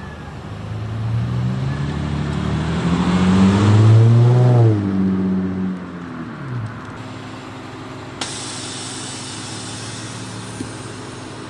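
Infiniti G35 coupe's V6 engine revving as the car pulls away, its pitch climbing to a loud peak about four seconds in and then falling off as it drives away. About eight seconds in the sound changes suddenly to a quieter, steady engine note with a hiss over it.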